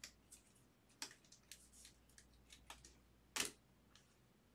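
Faint clicks and light taps of baseball trading cards being handled and set down on a stack, with one sharper tap about three and a half seconds in.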